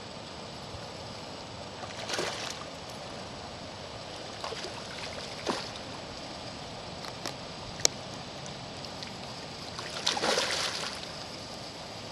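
Hooked carp splashing and swirling at the surface during the fight: a splash about two seconds in, another around five seconds, and a longer, louder one about ten seconds in. Two short sharp clicks come between them.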